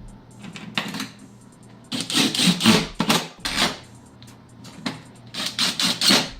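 Cordless impact driver running in three short rattling bursts, driving door-panel screws into a Jeep Cherokee XJ door.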